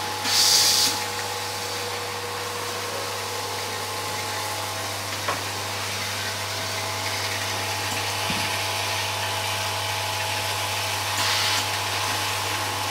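Laser marking line running: the steady hum of a vibratory bowl feeder under the even hiss of a fume extractor and cooling fans. Two short loud hisses come about half a second in and again near the end, with a single sharp click about five seconds in.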